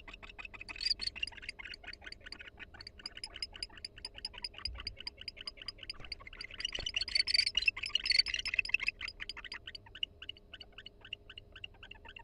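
Barn owls giving a rapid series of soft, high ticking calls, several a second, with a louder, harsher stretch in the middle: the quiet chattering a mated pair makes to each other in the nest.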